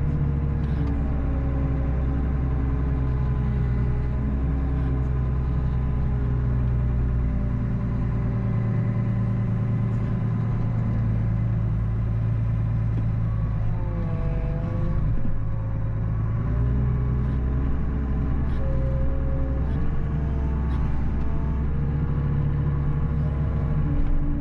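Diesel engine of a wheel loader running steadily, heard from the operator's seat; its pitch dips and comes back up about fourteen seconds in, as the engine takes a load and recovers.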